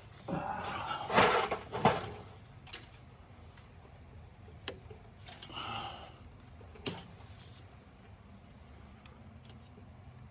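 Hand tools and small metal parts clattering: a burst of clinking in the first two seconds with two loud sharp clicks, then a few single clicks and a short rustle.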